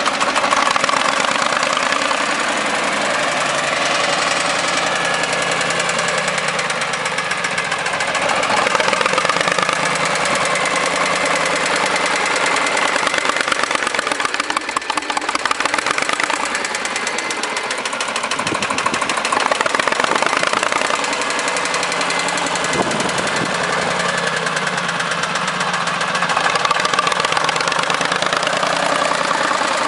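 Backhoe loader's diesel engine running continuously, its sound swelling and easing a few times as it works.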